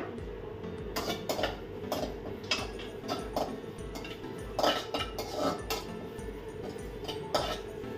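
Perforated metal spatula scraping and clinking against an aluminium kadai as curry leaves are stirred and dry-roasted, in irregular knocks about one or two a second over a steady hum.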